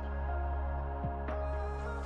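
Electronic background music with a deep sustained bass, held chord tones and occasional kick-drum hits.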